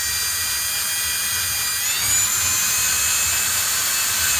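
Power drill running steadily, driving a drywall screw through pegboard into metal wall studding, with a whine that steps up in pitch about two seconds in. The screw takes a moment to catch in the metal stud before it bites.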